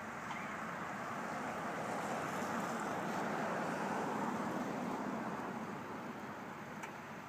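A road vehicle passing on wet pavement: a tyre hiss that swells to a peak about midway and fades again, over a steady hiss of rain.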